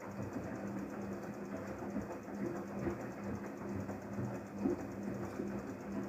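Daewoo DWD-FT1013 front-loading washing machine turning its empty drum in a 95°C drum-cleaning wash: sudsy water sloshes and splashes inside over a steady hum from the drum motor.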